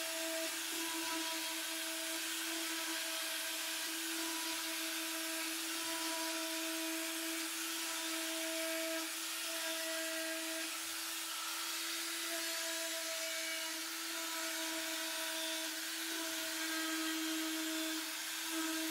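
Electric detail sander with a triangular pad running steadily while sanding inside OSB compartments: a constant motor hum over a sanding hiss.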